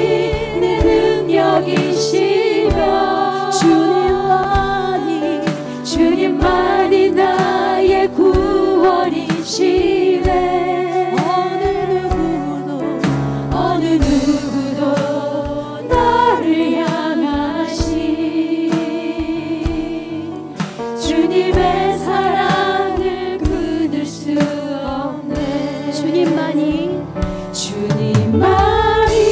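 A Korean worship song sung live, led by a woman singing into a microphone, with instrumental accompaniment and other voices singing along.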